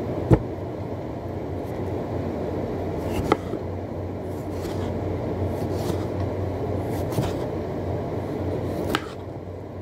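A steady low mechanical hum with a few sharp clicks as a tomato is cut into wedges by hand with a knife. The loudest click comes just after the start, and the hum drops a little near the end.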